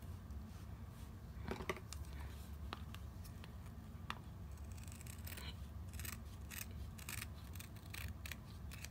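Scissors snipping through faux fur, trimming the excess around the edge of a slider's sole. A few separate cuts come first, then a quick run of short snips through the second half.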